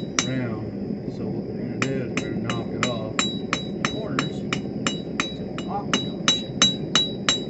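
Hand hammer striking hot 1/4-inch mild steel rod on an anvil, drawing the rod out to a taper. After a short pause, a steady run of blows at about three a second starts about two seconds in, each blow with a bright anvil ring.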